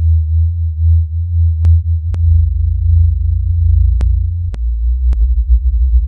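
Electronic industrial noise music: a loud, deep sine-wave drone with a thin, steady high tone above it, broken by about seven scattered sharp clicks.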